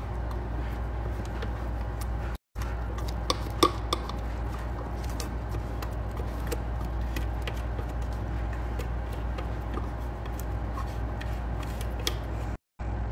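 Silicone spatula scraping and tapping minced vegetables out of a plastic food processor bowl into a metal mesh strainer: small scattered clicks and scrapes over a steady low hum, with two brief cuts to silence.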